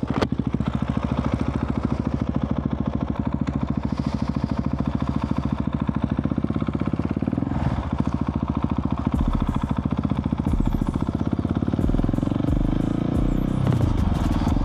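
Husqvarna 701's single-cylinder four-stroke engine, breathing through an aftermarket Arrow exhaust, pulling the bike away and riding on. The engine note dips and picks up again about halfway through and once more near the end.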